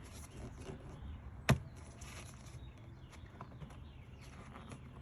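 Hand work on plastic engine-bay parts: one sharp click about a second and a half in, with a few faint small clicks and rustles around it.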